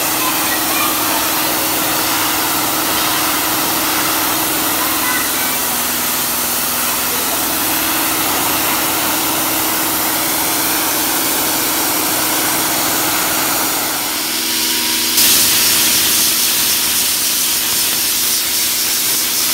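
Compressed air hissing steadily from a handheld air blow gun, with a low steady hum under it. About fifteen seconds in the hiss turns louder and sharper.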